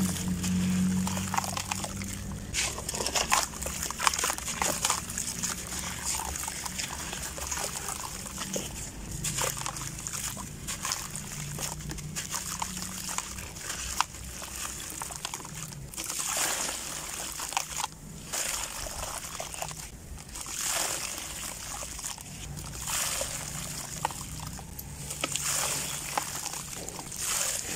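Dry gritty chunks crumbled by hand into a bucket of water: crackling, crumbling grit pouring and trickling into the water with sloshing, in repeated swells.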